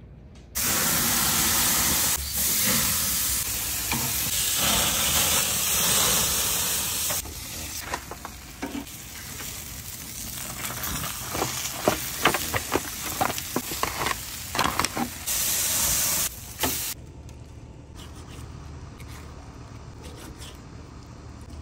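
Mushroom brisket sizzling on a hot grill: a loud steady hiss, broken through the middle by sharp clicks and crackles, then dropping to a quieter background for the last few seconds.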